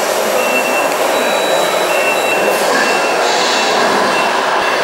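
Steady background noise of a busy indoor model-truck show hall, with a high thin beep that sounds on and off several times.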